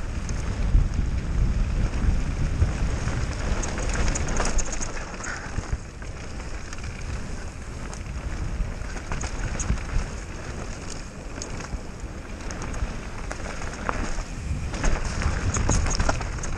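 Mountain bike descending a dirt forest trail at speed: tyres crackling over dirt and leaf litter, the bike clattering and rattling over bumps, with wind buffeting the microphone.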